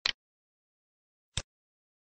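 Two single computer mouse clicks, about a second and a half apart, with dead silence between them.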